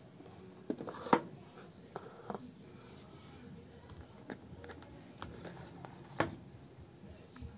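Handling sounds of unboxing: scattered clicks and light knocks as fingers work a smartphone loose from its cardboard box tray. The loudest knock comes about a second in, another just after six seconds.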